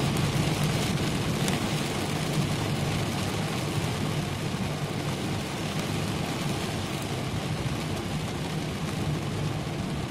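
Heavy rain falling on a car's roof and windshield, heard from inside the cabin, over the steady low hum of the car driving slowly on a flooded road.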